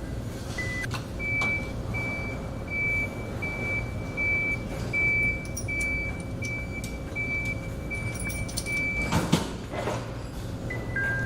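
Electronic warning beeper on an assembly line, a single high tone pulsing on and off about twice a second, over a steady hum of factory machinery. Near the end a short hiss cuts across it.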